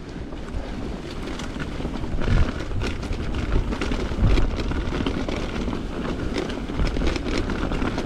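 Mountain bike riding over a rough trail: tyre rumble with frequent rattles and clicks from the bike, and wind buffeting the microphone.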